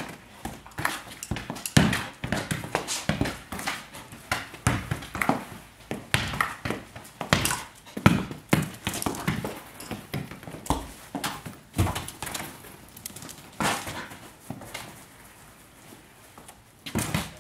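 Border collies' claws clicking and scrabbling on a tiled floor as they chase and nose soccer balls, with irregular knocks of the ball. The activity quietens for a couple of seconds near the end.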